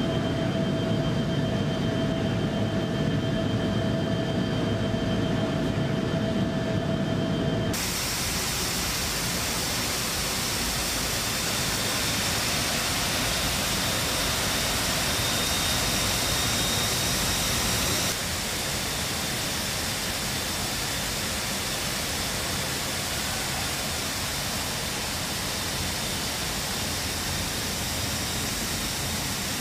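Steady jet-engine drone in the cargo hold of a C-17 Globemaster III, with a low rumble and a steady whine. About eight seconds in it changes abruptly to an even rushing hiss of air past the open paratroop door.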